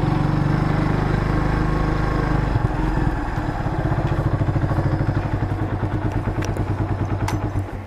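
Motorcycle engine running as the bike rides up close and slows, its exhaust beat becoming a more distinct, even pulse in the second half. Two light clicks come near the end.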